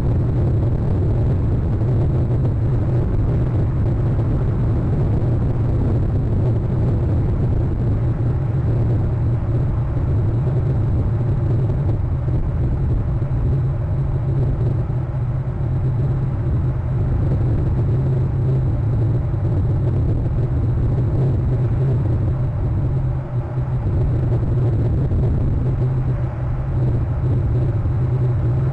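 A steady low rumbling noise with a faint, thin high whine above it, unchanged throughout.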